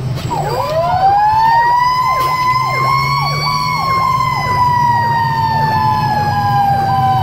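Fire engine's sirens heard from inside the cab. A mechanical siren winds up over about the first second, then slowly coasts down in pitch, while an electronic siren yelps rapidly over it. The diesel engine rumbles steadily underneath.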